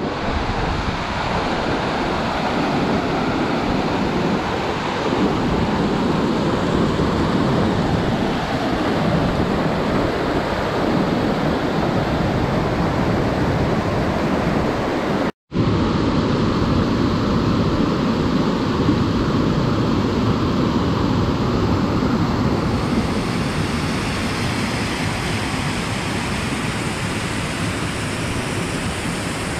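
Waterfall or fast mountain creek: a loud, steady rush of water, broken once by an edit cut about halfway through.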